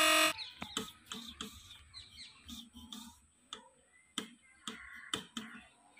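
Irregular light clicks and knocks, about a dozen, as a hand handles an inverter's cooling fan and sheet-metal casing.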